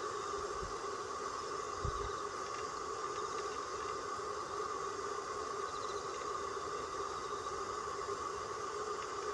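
Steady outdoor background noise with a constant low hum, possibly distant traffic; there is no owl call. Two faint low bumps sound in the first two seconds.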